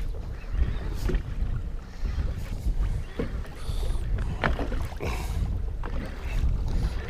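Wind buffeting the microphone in an uneven low rumble, with waves lapping and slapping against the boat's hull in scattered short splashes.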